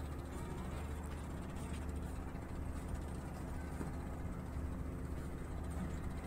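Steady low drone of a vessel's engine running at a constant speed, a deep even hum with no change in pitch.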